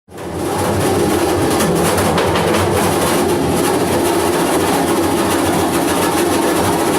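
Dense, steady noisy drone from a live music performance, fading in over the first half second and holding level, with a low hum of pitched tones under the noise.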